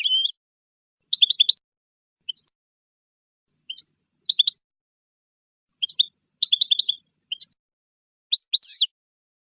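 European goldfinch singing: short phrases of quick, bright twittering notes, some gliding and buzzy, with brief silent pauses between phrases.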